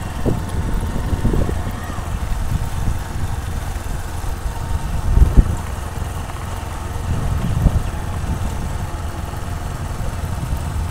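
Wind buffeting the phone's microphone: a low, uneven rumble that rises in gusts, the strongest one about five seconds in.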